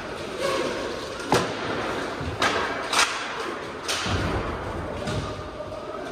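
Inline hockey sticks and puck in play: several sharp cracks of sticks hitting the puck and each other, about four in the first four seconds, followed by a couple of dull thuds.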